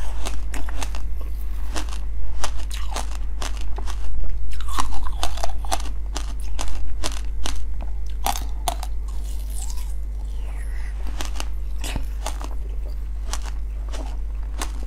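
Close-miked eating: biting into and chewing orange jelly balls with black seeds in them, with many sharp crunchy clicks and wet mouth sounds.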